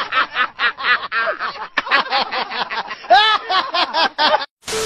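A man laughing hard in a long run of quick, pitched bursts. Near the end the laughter stops and a brief burst of noise follows.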